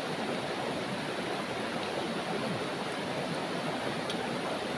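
River water running steadily: an even rushing of a stream flowing over rocks.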